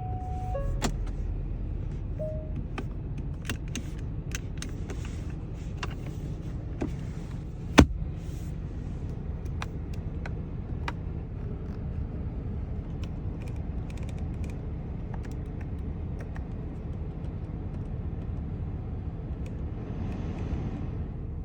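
2022 Genesis G70's engine idling with a steady low rumble, with scattered light clicks and one sharp knock about eight seconds in.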